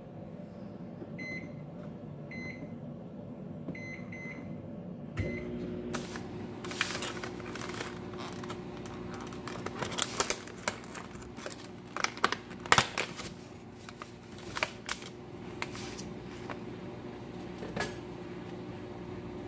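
Microwave oven keypad beeping several times as buttons are pressed, then the microwave starting up about five seconds in and running with a steady hum. Over the hum come sharp clicks and crackles of a plastic clamshell container of strawberries being handled.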